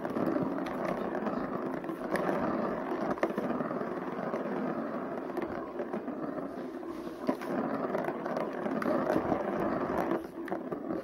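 Plastic ball rolling round the ring track of a cat scratcher toy: a steady rolling rumble with a few sharp clicks as the cat bats it, stopping near the end.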